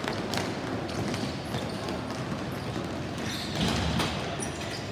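Ball hockey in play: scattered sharp clacks of sticks and the ball on the plastic dek court, over the general noise of the game, a little louder just before four seconds in.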